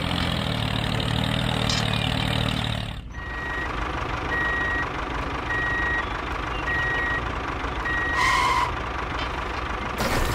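A vehicle engine running, then about three seconds in a reversing alarm starts beeping over the engine, about six short beeps roughly a second apart, followed by a short hiss.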